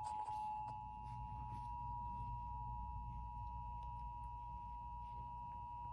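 Emergency Alert System two-tone attention signal: two steady tones sounded together and held as one unbroken chord. It announces an emergency broadcast, here an Amber Alert for a child abduction.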